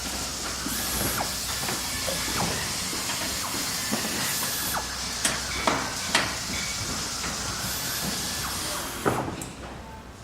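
Factory machinery ambience: a steady hiss like escaping air or steam, with scattered sharp knocks and clanks from the machines, several in the middle. A last knock comes near the end, and then the hiss dies down.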